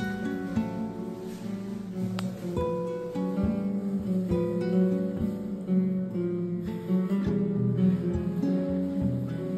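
Background music played on acoustic guitar, a run of plucked notes.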